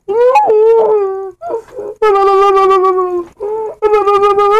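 A boy's voice wailing loudly in long drawn-out cries, several in a row with short breaks, each held at a fairly steady pitch that wavers slightly.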